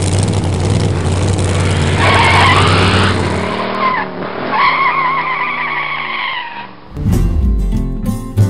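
Car engine running, with tyres squealing twice: a rising squeal about two seconds in and a longer wavering one about five seconds in. Guitar music comes in near the end.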